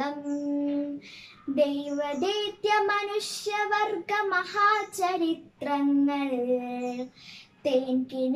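A young girl singing a Malayalam poem solo without accompaniment, holding long notes that glide between pitches, with brief pauses for breath between phrases.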